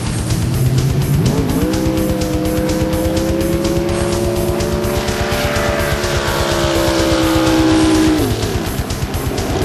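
Supercharged engine of a flat-bottom V-drive drag boat at full throttle: its note rises about a second in, holds high and climbs slightly, then falls away near the end as the throttle comes off. Rock music with a steady beat plays along with it.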